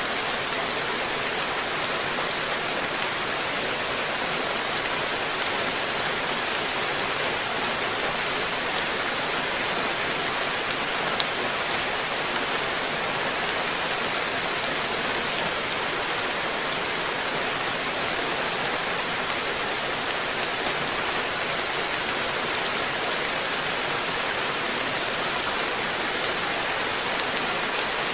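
Steady rain falling on a garden pond and the plants and deck around it, an even, dense patter with a few louder single drop hits now and then.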